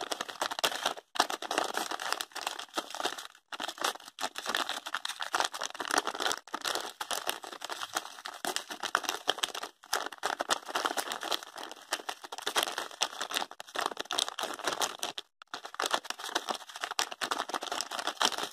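Thin plastic bag crinkling and crackling continuously as it is squeezed and shaken to tip brown sugar into a bowl, with a few brief pauses.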